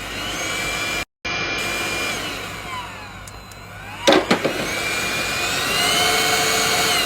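Portable cordless handheld vacuum cleaner's electric motor running with a steady whine. Its pitch sags and comes back up midway, then climbs to a higher steady pitch, with a few sharp knocks about four seconds in. The sound cuts out for an instant about a second in.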